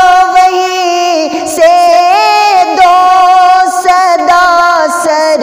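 A young man's high voice singing an Urdu naat, drawing the words out in long, ornamented notes that waver and glide in pitch.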